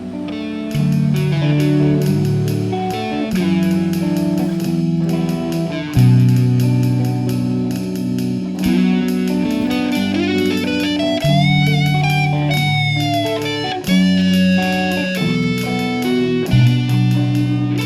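Background music: electric guitar playing, with bent, sliding lead notes about halfway through.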